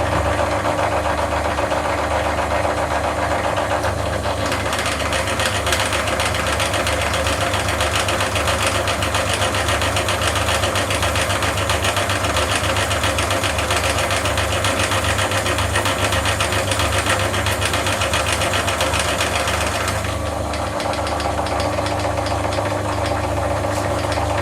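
CNC milling machine cutting aluminium: the spindle runs with a steady hum and whine while the cutter makes a fast, even rattle in the metal.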